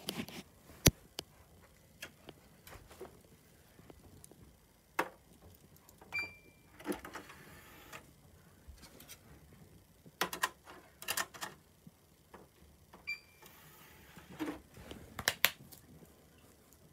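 Scattered clicks, taps and knocks of things being handled, with two short high beeps about six and thirteen seconds in.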